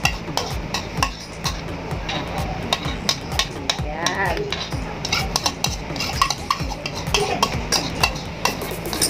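Metal spoon scraping and tapping against a plastic bowl in quick, irregular strokes as a thick avocado and milk mixture is spooned out into a glass mug.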